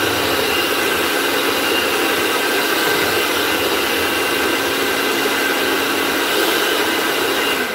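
Electric hand mixer running steadily with a motor whine as its beaters whip chocolate cake batter in a bowl, then switched off right at the end.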